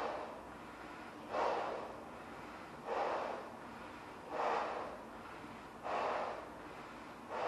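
A person blowing up a large balloon by mouth, taking a quick, noisy gasping breath about every second and a half between blows into the balloon.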